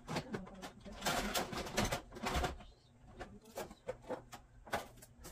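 Plastic toys clattering and rustling as hands rummage through a plastic storage bin, with denser handling in the first half and scattered knocks after.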